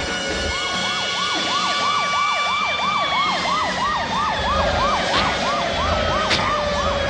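Police car siren sounding a fast yelp, a rising sweep repeated about three times a second, starting about half a second in. A few sharp clicks come in its second half.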